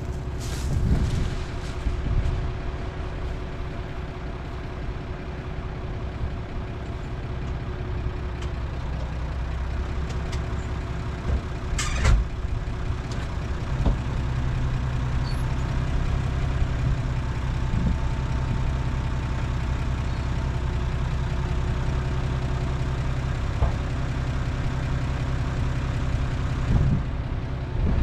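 Tractor diesel engine running steadily, with a held whine over it. It works harder from about 14 s in, and there is one sharp knock about 12 s in.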